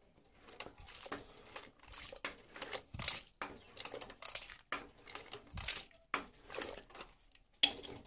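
A stirring rod scraping and knocking around inside an aluminium pot of simmering taro-leaf curry, in irregular strokes about one or two a second.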